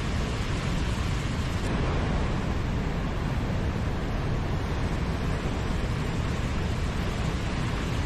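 Steady rushing of a tall waterfall, about 150 ft high, cascading down rock ledges onto boulders.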